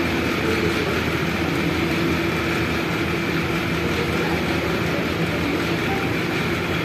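A steady, even rumbling hum with a few faint held tones, unchanged throughout, like a machine or fan running.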